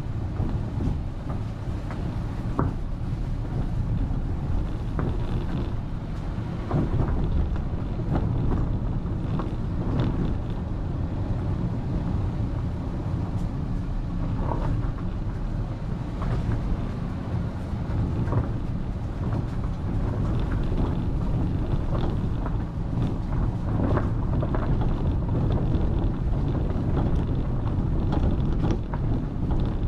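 Travel noise from a vehicle moving along a road, heard from a GoPro: a steady low rumble of road noise and wind on the microphone, with scattered small knocks and clicks from bumps in the road.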